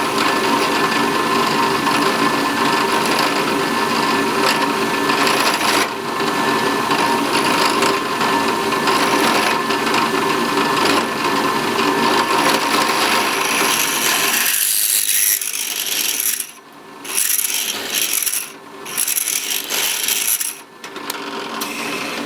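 A small power tool's motor runs steadily while the edge of a drilled-out aluminum ferrule is rounded off. About two-thirds of the way through, the steady tone stops and a high scraping sound comes and goes, with brief pauses.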